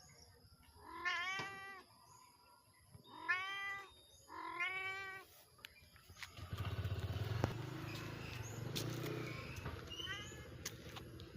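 A cat meowing: three drawn-out, rising-and-falling meows in the first five seconds and a fainter, shorter one near the end. A steady low rumbling noise sets in about halfway through.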